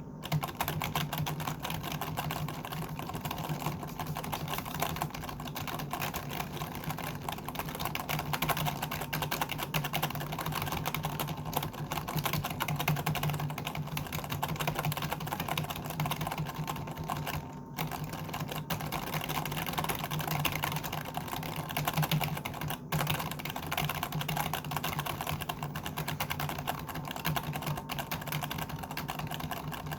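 Computer keyboard being typed on continuously, a dense run of rapid key clicks with brief pauses about two-thirds of the way through.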